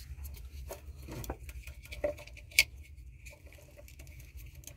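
Light plastic clicks and rustling from a wiring-harness connector and wires being handled, with one sharper click about two and a half seconds in.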